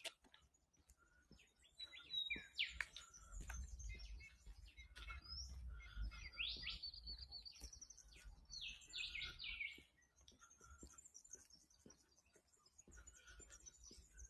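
Several wild birds calling faintly: short high chirps and quick runs of falling notes, most of them about halfway through.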